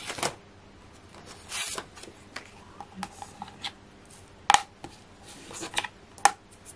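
Hands working a stamp platform and card: scattered light clicks, taps and rustles, with two sharper plastic knocks in the second half.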